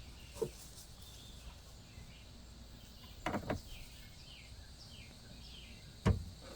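A few short clicks and knocks as an AC gauge hose's quick coupler is fitted onto the low-side service port, with a double click about three seconds in and another near the end. A bird chirps repeatedly in the background.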